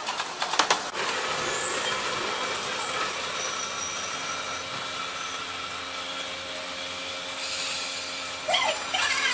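Electric trains running through a junction of rail points: a few sharp wheel clacks over the switches within the first second, then a steady running hum with faint whining tones.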